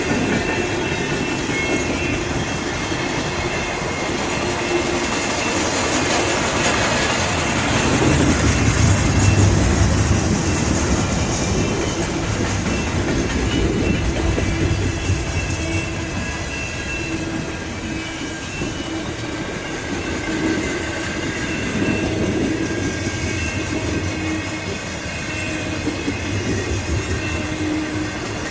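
A Canadian Pacific freight train's cars rolling past on the track: a steady rumble with thin, high steel-wheel tones, swelling louder about eight to ten seconds in.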